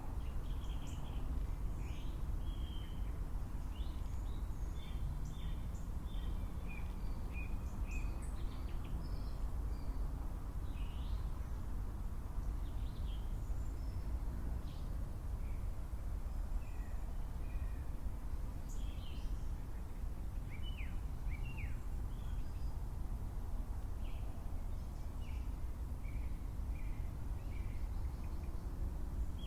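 Birds chirping and calling outdoors, many short high chirps scattered throughout, over a steady low rumble of background noise.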